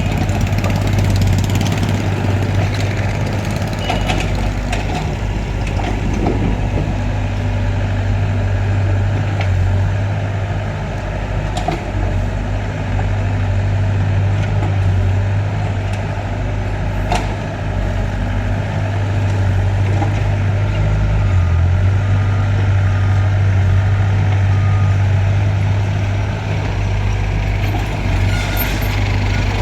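Heavy diesel engine running steadily with a deep drone, with a couple of sharp knocks partway through.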